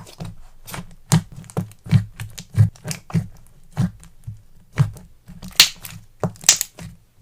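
Fruits Bonbon slime being pressed, stretched and squished by hand: a steady run of short sticky clicks and pops, about two a second, with a couple of louder, crisper crackles near the end.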